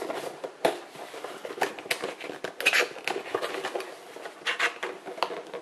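Cardboard box being folded and worked by hand: irregular rustles, scrapes and small taps as a tab is pushed at a slot that won't go in.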